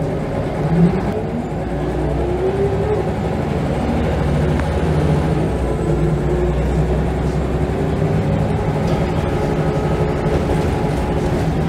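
Scania L94UB bus's 9-litre five-cylinder diesel engine pulling under acceleration, heard from inside the passenger saloon. The engine note climbs in pitch and grows louder over the first few seconds, then runs on steadily at high revs.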